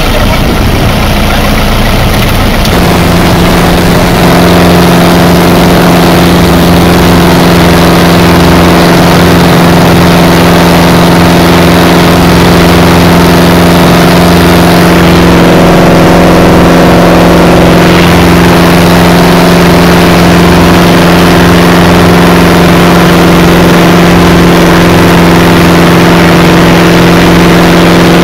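A fishing boat's engine running steadily and loud, with a constant droning hum; the note settles into a steadier, stronger hum about three seconds in.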